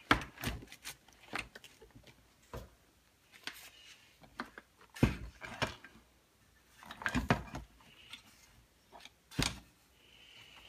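Scattered clicks and knocks as the plastic housing and metal handlebar of a partly rebuilt Husqvarna 181 chainsaw are handled, turned over and set against the workbench. The loudest knocks come about five seconds in and again near the end.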